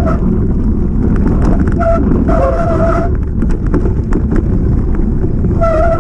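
Mountain bike descending a rough downhill trail at speed: wind rumbling on the microphone, with rattling knocks as the bike runs over the ground. A steady pitched whine comes and goes, dropping out for about a second early on and again for a few seconds after the middle.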